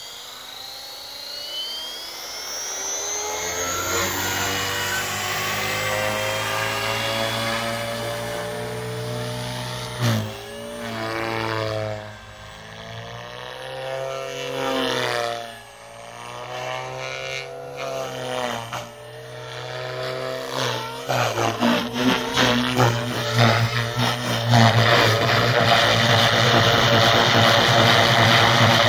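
Electric RC helicopter (OXY 4 with 320 mm Spinblades, Scorpion 2520 brushless motor) spooling up with a rising whine, then flying with its pitch bending up and down as head speed and blade load change. From about two-thirds in it gets louder and choppier as it flies close and low over the grass.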